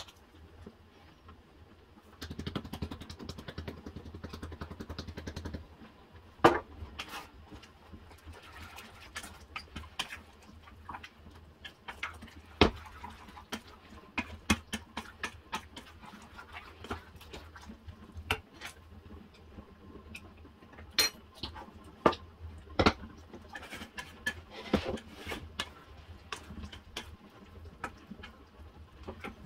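Wooden spoon stirring a thick vegetable cream sauce in a stainless steel saucepan, with irregular sharp knocks and scrapes as it hits the pan's sides and bottom. A steady hiss runs for about three seconds near the start.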